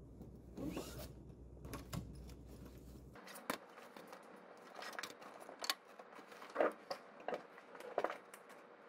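A fabric shoulder bag being unpacked: soft rustling of the bag and a series of quiet knocks and taps as notebooks, folders and a pencil case are set down on a desk. The sharpest taps come in the second half.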